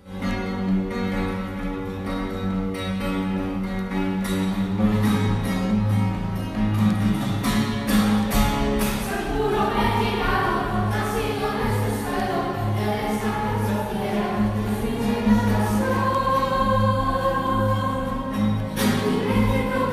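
A song with a group of voices singing over instrumental backing. It opens on held chords, and a steady beat comes in about five seconds in.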